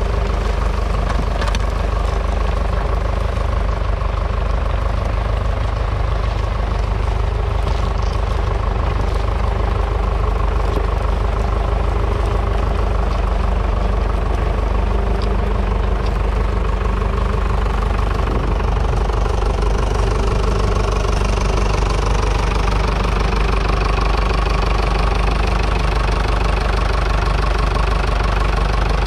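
1959 Fordson Power Major's 3.6-litre four-cylinder diesel engine running steadily under load, pulling a three-furrow mounted plough through the soil.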